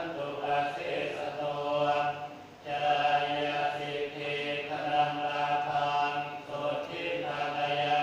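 Group of Buddhist laypeople chanting together in unison: a steady, nearly level-pitched recitation in long phrases, with a short break for breath about two and a half seconds in.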